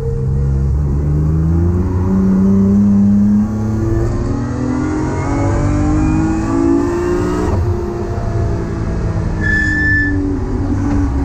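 S54 3.2-litre straight-six in a BMW E30, heard from inside the cabin under hard acceleration. The revs climb, drop sharply at an upshift about three and a half seconds in, climb again, then fall away as the driver lifts off about seven and a half seconds in and stay lower after. A short high-pitched tone sounds near the end.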